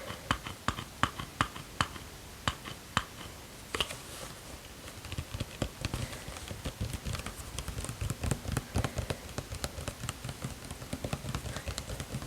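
Fingernails tapping on an object: separate, crisp taps, two or three a second, for the first few seconds. From about five seconds in it becomes a quicker, duller patter of tapping and scratching.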